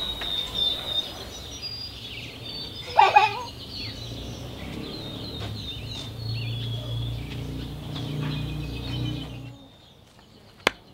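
Small birds chirping, with a loud falling cry about three seconds in. Near the end the birdsong stops, and there is a single sharp knock of an axe blade biting into a wooden chopping stump.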